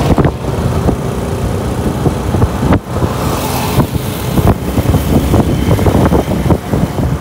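A road vehicle running on the move, a loud, rough, uneven rumble.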